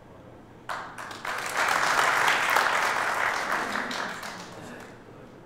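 Audience applauding, starting suddenly about a second in, at its fullest in the middle and dying away near the end.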